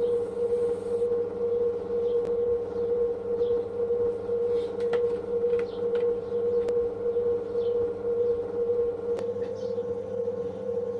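Electric pottery wheel motor running at a steady speed: a constant high hum that holds one pitch throughout, with a few faint clicks.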